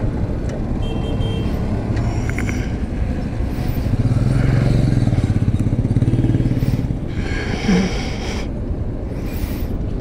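Royal Enfield Himalayan's single-cylinder engine running as the motorcycle rides along, its note growing louder for a few seconds midway.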